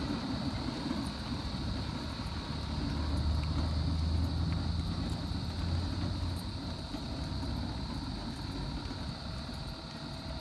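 A motor vehicle's engine running as a low, steady hum that swells about three seconds in and fades a few seconds later, under a steady high-pitched whine.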